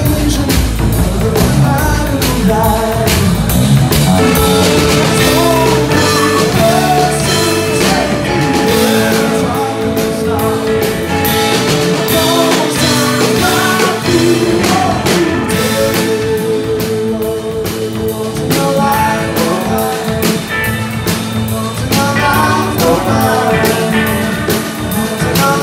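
Live rock band playing: electric guitars over a drum kit, with one long held note through the middle.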